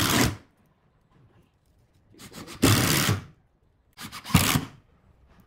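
Cordless driver running wood screws into a pine chair seat: three bursts of about a second each, one ending just after the start, one around two and a half to three seconds in, and one just after four seconds, with near silence between.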